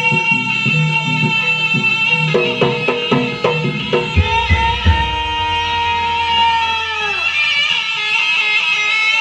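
Jaranan music from a traditional Javanese ensemble: regular low drum strokes under a sustained high melody, a deep booming tone entering about four seconds in, and held notes that slide down in pitch near seven seconds.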